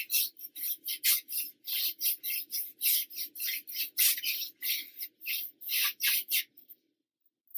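A paintbrush swept quickly back and forth across a painted wooden board in short scratchy strokes, about four a second, lightly brushing on a distressed finish. The strokes stop about a second before the end.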